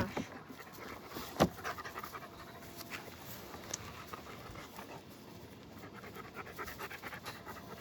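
A dog panting in quick, even breaths, with one sharp knock about a second and a half in.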